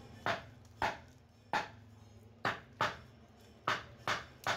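Green fibre motor housing of a marble cutter knocked hard against a wooden plank, about eight sharp knocks at uneven intervals, to jar loose the field coil stuck inside the housing.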